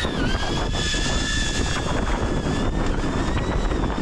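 Mountain bike rolling fast down a trail: wind noise on the microphone and a steady rough rumble, with a thin high whine running through it and a few small knocks.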